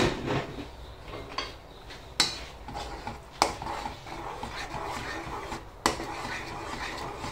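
Wooden spoon stirring a paprika-tomato sofrito into wheat and chickpea broth in an enamel pot, the liquid swishing, with four sharp knocks against the pot.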